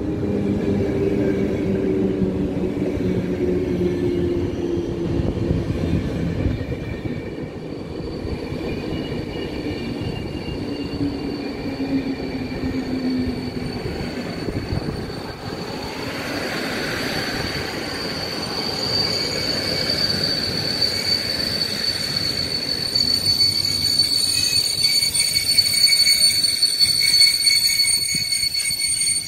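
PKP Intercity passenger coaches rolling past, their low running tones falling in pitch as the train slows. A steady high-pitched brake and wheel squeal sets in about eight seconds in and grows louder, with further squealing tones joining near the end.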